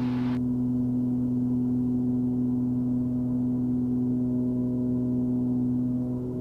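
Steady drone of a Cessna 340's twin turbocharged Continental six-cylinder engines and propellers in flight, heard inside the cabin as an even, deep hum with a strong steady tone. A faint hiss cuts off just after the start.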